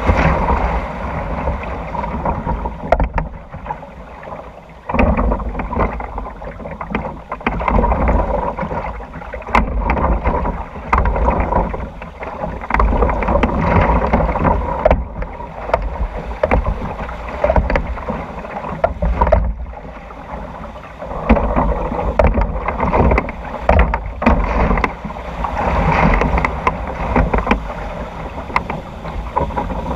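Log flume water rushing and splashing along the trough under a riding log boat, swelling louder and quieter as the boat moves, with wind rumbling on the microphone and scattered sharp knocks.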